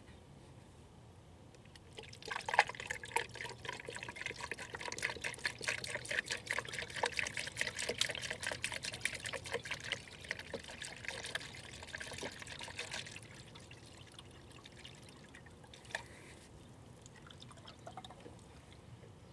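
Engine coolant being poured into a plastic coolant reservoir, a splashing pour that starts about two seconds in and runs steadily until it eases off about two-thirds of the way through.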